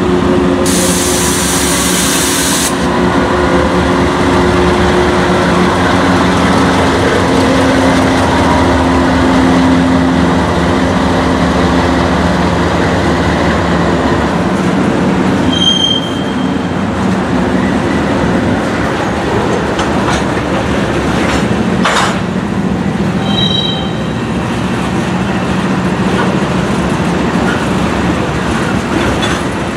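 A freight train passing close by: the GE diesel locomotives run past first, with a steady engine drone and a short hiss near the start. Loaded hopper cars then roll by with wheel and rail noise, brief high wheel squeals about halfway and again later, and a single sharp clank.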